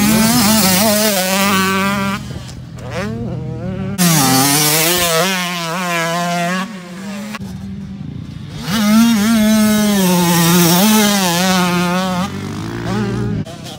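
Motocross dirt bike engines revving hard as the bikes ride the track, with the pitch wavering as the throttle opens and closes. The sound comes in three loud surges with quieter spells between.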